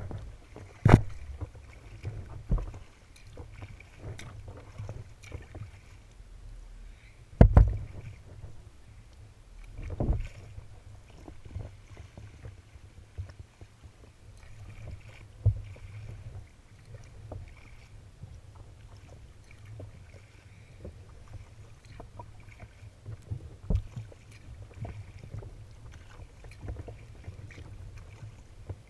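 Choppy water splashing and slapping against a sea kayak's hull as it is paddled, over a steady low rumble. Several sharp, loud slaps stand out, the loudest a few seconds in.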